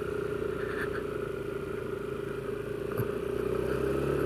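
Yamaha NMAX 155 scooter's single-cylinder engine running steadily at low speed, pulling a little harder and slightly louder near the end.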